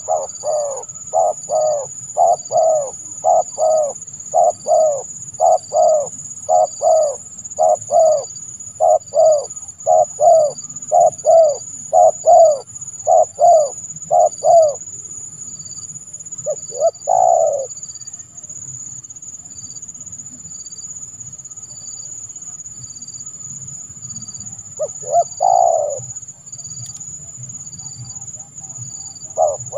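Spotted dove (tekukur) cooing: a long run of quick, paired coos, then two longer single coos with pauses between. A steady high-pitched whine runs underneath, with a faint high tone pulsing regularly.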